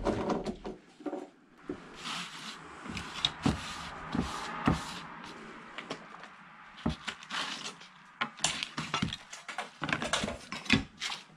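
Rummaging through clutter by hand: scattered knocks and clicks of objects being picked up and set down, with a stretch of sliding, rustling noise as flat sleeves and frames are shuffled across a dusty table.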